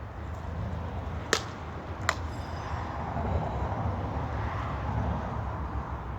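Steady low hum of running machinery, with two sharp clicks a little under a second apart.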